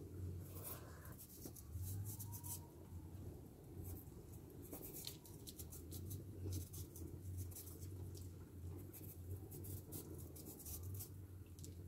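Knife paring the skin off a yellow yam: a quiet run of short scratchy strokes, over a faint low hum.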